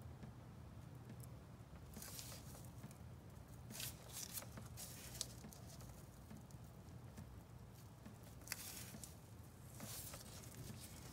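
Faint rustling and scraping of a gloved hand gripping and twisting an oil filter canister loose by hand, in a few short bursts with a couple of sharp clicks, over a low steady hum.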